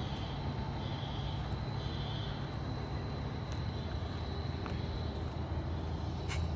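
Steady low rumble of an idling vehicle engine, with three faint short high beeps in the first two seconds and a sharp click near the end.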